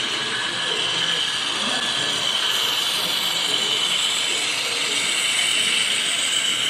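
Model freight train running on the layout track: a steady whir of the locomotives' motors and the wheels rolling on the rails, getting a little louder as the train passes close by.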